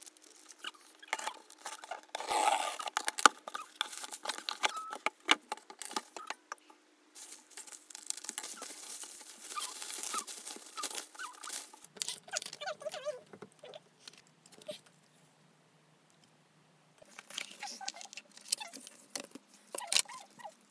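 Hands unpacking an album: plastic bubble wrap crinkling and rustling as it is peeled away, with cardboard packaging handled around it, full of irregular small clicks and crackles. The handling stops for a couple of seconds about two-thirds through, then picks up again as the album box is opened.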